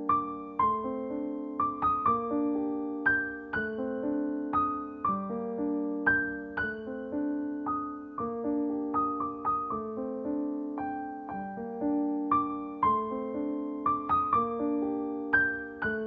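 Background piano music: a gentle, steady run of single notes and chords.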